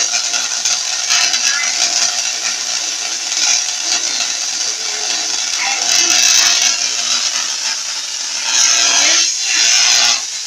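Tesla coil discharging sparks and streamers from its toroid topload: a continuous harsh, rasping electrical buzz of arcing, swelling louder a few times.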